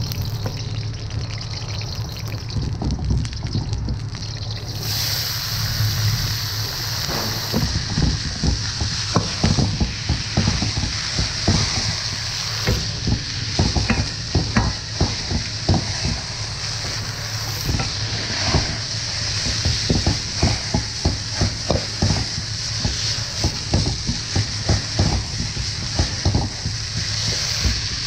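Hot oil sizzling in a wok, growing much louder about five seconds in. From there bean sprouts are stir-fried with a metal wok ladle, which scrapes and clanks against the wok many times over the steady sizzle.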